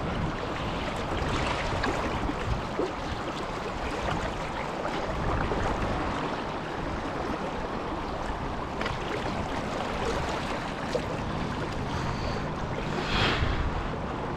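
Fast-flowing river water rushing past, a steady wash.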